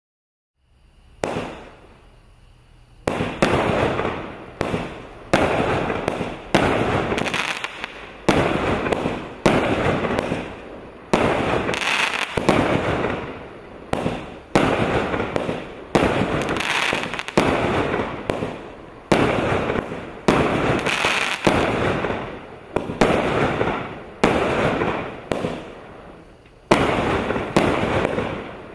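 A 49-shot, 1-inch (25 mm) consumer firework cake firing shot after shot, about once a second. Each shot is a sharp bang that trails off as its star shell bursts in the sky.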